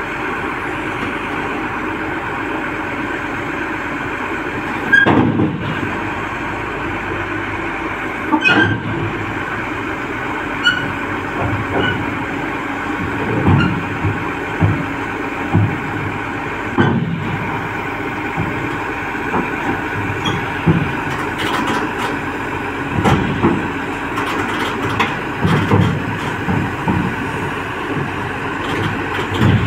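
Tata Hitachi crawler excavator's diesel engine running steadily as it tracks up onto a steel lowbed trailer, with repeated sharp clanks and knocks of the steel tracks on the ramp and deck, coming more often in the second half.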